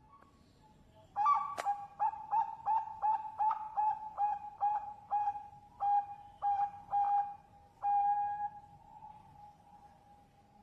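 Zebra dove (Bangkok perkutut) cooing: a rapid run of short, clear, pitched notes, about two to three a second, ending in one long drawn-out note that fades. A single sharp click sounds near the start of the run.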